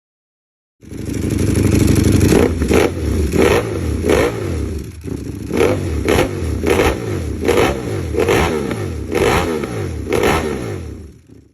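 Ducati Panigale superbike engine through an SC Project exhaust, starting about a second in and revved in a string of about a dozen quick, sharp throttle blips over its running engine, then fading out near the end.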